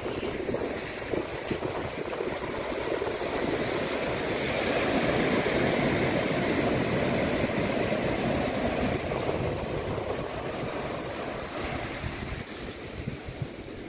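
Pacific Ocean surf washing onto the shore: a rushing wash that swells about four seconds in, holds, then slowly fades away.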